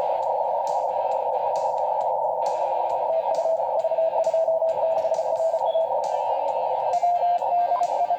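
Amateur HF radio receiver on the 10-meter band, listening through a narrow CW filter: a steady hiss of band noise with faint Morse code signals keyed in it, one from about three seconds in and a slightly higher one near the end.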